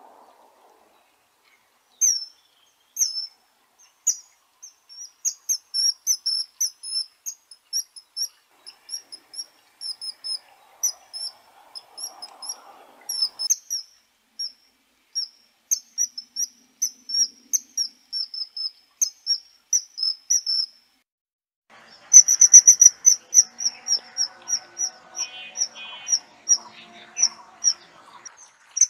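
Kingfisher calling: short, shrill, high-pitched notes start about two seconds in and come in irregular bursts. Near the end they turn into a louder, fast, even series.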